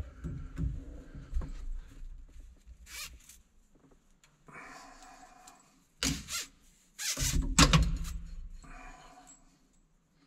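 A long sheathed control cable being handled and fed around in a vehicle cab: a series of short rasping scrapes as the cable slides and rubs, with a few dull knocks. The loudest scrapes come a little past halfway.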